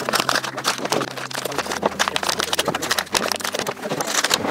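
Thin plastic packaging bags crinkling and rustling in the hands as small brushless drone motors are unwrapped: a dense, irregular run of crackles.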